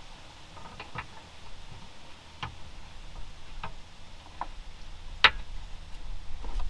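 Light clicks and taps of hand tools and bolts being worked on a car's differential, about half a dozen spaced irregularly, the loudest about five seconds in.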